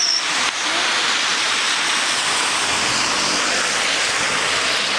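Steady hiss of heavy rain and wet traffic on a flooded street, with a vehicle engine rumbling low from about halfway through.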